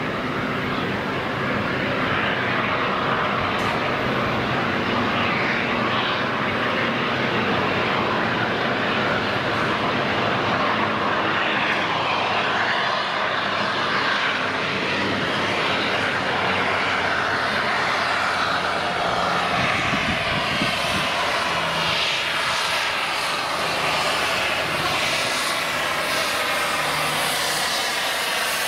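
Peppercorn A1 Pacific steam locomotive 60163 Tornado working its train as it approaches and passes. Its exhaust and running noise make a loud, steady, continuous rush that grows a little fuller as it nears.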